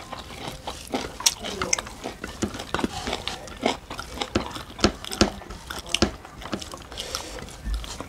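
Close-up eating sounds of people chewing rice and fish curry eaten by hand: a steady stream of irregular wet mouth smacks and chewing clicks.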